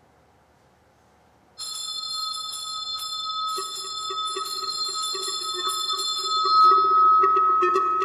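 A school bell rings continuously. It starts suddenly after a second and a half of near silence, a lower pulsing tone joins in, and it grows louder toward the end, with quick ticks added.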